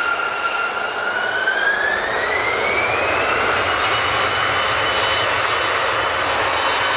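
Jet airliner's turbofan engines running, their whine rising in pitch over a couple of seconds as they spool up, then holding steady over a constant rush of engine noise.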